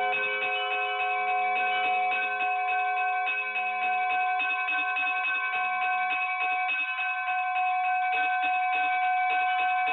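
Bells ringing in a rapid peal: many quick strikes over long, overlapping ringing tones.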